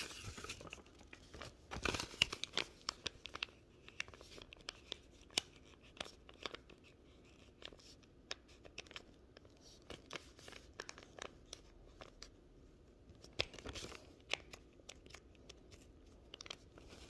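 Faint paper crinkling and rustling with scattered sharp ticks and scrapes: a folded paper airplane being handled and written on with a pencil, close to the microphone.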